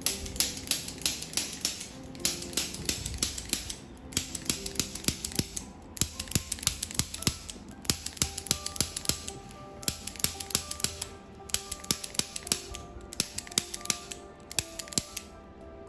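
Background music with a fast, even clicking beat under short held notes, pausing briefly every few seconds.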